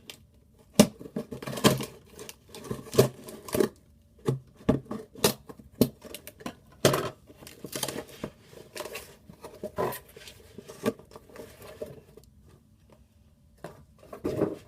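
Packaging being handled and opened: irregular clicks, taps and crinkles of box and wrapping, dying down near the end.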